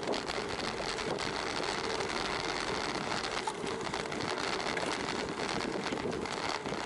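Steady rush of wind on the microphone and tyre noise of a road bicycle rolling along a tarmac path, with a faint mechanical rattle.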